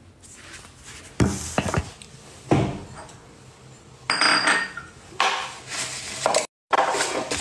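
Kitchen clatter: dishes and metal utensils clinking and knocking in a string of short bursts.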